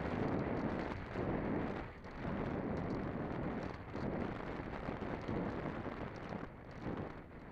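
Wind noise from airflow rushing over the microphone of a Conscendo RC glider in flight, a rough rumbling hiss that swells and dips about once a second, with no motor whine.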